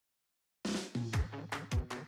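Electronic dance intro music: silence for about half a second, then the track kicks in with a cymbal-like crash and a punchy kick-drum beat, about two strokes a second.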